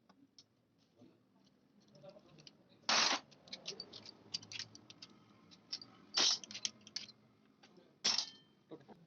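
Metal tools and gearbox parts clicking and clinking as a manual gearbox is dismantled, with three louder short rasping noises among the clicks.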